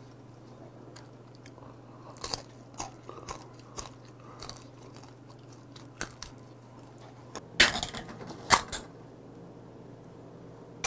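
A person chewing and crunching dried bar snacks, with a run of short dry crunches and a few louder ones about three-quarters of the way through.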